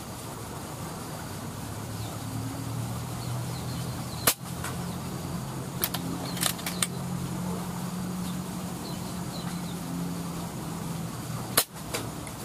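Two sharp air-rifle shots about seven seconds apart, a few seconds in and near the end, with a few lighter clicks about two seconds after the first as the rifle is handled. A steady low hum runs underneath and stops just before the second shot.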